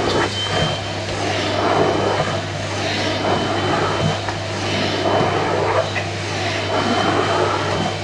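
Household vacuum cleaner running steadily while its nozzle is passed over a cat's fur: a constant motor hum and faint whine under a rushing suction hiss that swells and fades every second or two.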